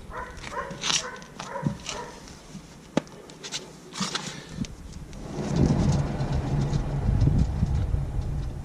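Clicks and knocks of handling, then about five seconds in, the rear wheel hub bearing of a jacked-up Honda CR-V RD1 rumbles with a low steady hum as the wheel spins. The bearing is worn.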